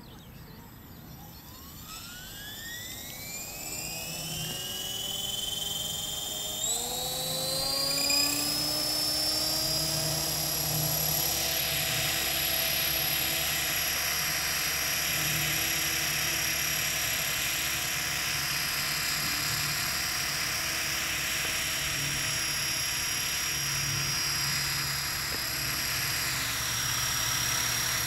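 Align T-Rex 500 electric model helicopter spooling up. The motor and rotor whine rises in pitch over the first eight seconds or so, then holds steady at flying speed with the whoosh of the main and tail rotors.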